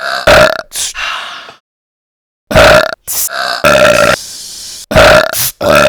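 Belches chopped into short edited clips and repeated one after another, each starting and stopping abruptly with dead silence between some of them, with a few brief hissy bursts among them.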